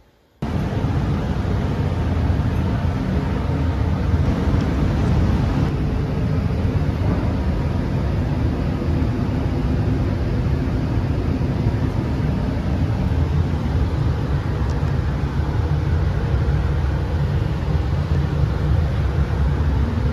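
Steady low rumble of a vehicle, cutting in abruptly about half a second in.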